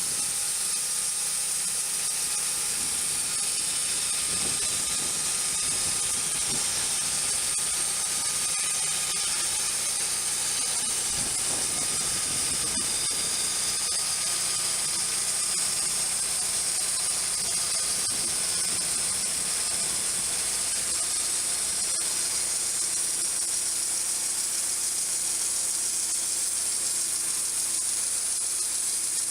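Wood-Mizer band sawmill running steadily, its blade cutting through a black walnut log, with an even high-pitched hiss over the engine.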